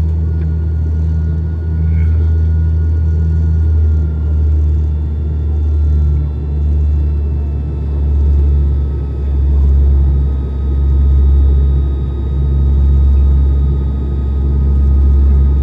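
Passenger airliner cabin noise during the climb after takeoff: a loud, steady low drone that swells and fades in slow waves, with a faint thin whine above it.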